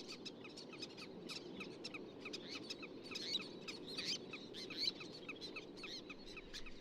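Many birds calling at once: a dense chatter of short, high, squeaky calls overlapping one another over a steady low background noise.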